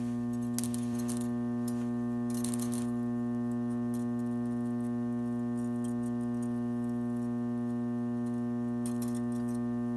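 Modified microwave oven transformer humming steadily at mains frequency while a thin steel wire shorted across its low-voltage, high-current secondary heats red hot. A few faint crackles sound over the hum.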